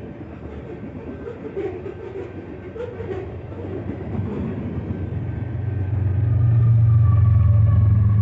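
Canadian Pacific grain train rolling past, its cars giving a rumble with irregular wheel clicks. From about five seconds in, a deep steady hum builds and becomes the loudest sound.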